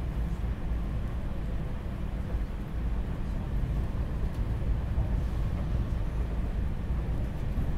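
SEPTA Regional Rail train running: a steady low rumble with a noisy hiss above it, no change in pace.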